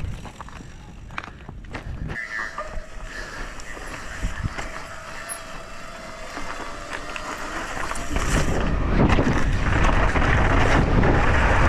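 YT Tues downhill mountain bike rolling off onto a steep slope of loose dirt and rock. Scattered clicks and knocks while it is barely moving; about eight seconds in, tyre noise and wind on the helmet camera rise sharply and stay loud as the bike gathers speed.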